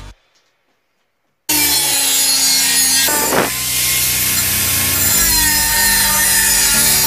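Angle grinder with a cut-off disc cutting sheet steel: it begins suddenly after a second and a half of silence, then runs steadily with a high motor whine over the loud hiss of the disc biting the metal.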